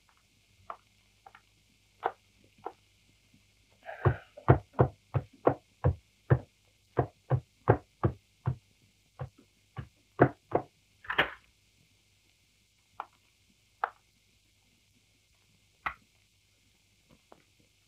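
Footsteps on a wooden staircase: a run of heavy steps, about two to three a second, from about four to eleven seconds in, with a few slower single steps before and after. The steps are muffled and hissy, as on an old film soundtrack.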